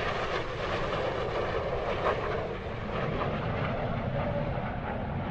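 Jet engines of a formation of three early swept-wing jet fighters flying past: a steady rushing jet noise.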